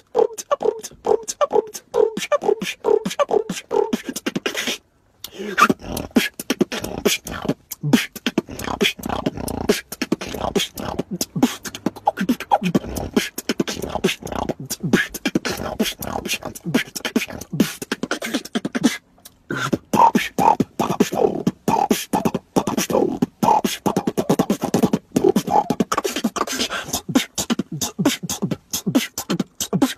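Solo beatboxing: a fast freestyle of mouth-made kick, snare and click sounds. It opens with a repeated pitched note about three times a second and stops briefly about five seconds in and again near nineteen seconds.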